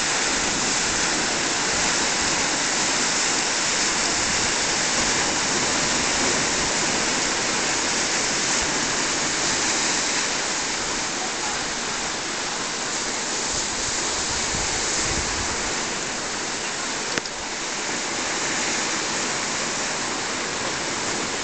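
Rough sea surf washing against the shore: a steady rushing hiss that eases a little partway through, with one brief click near the end.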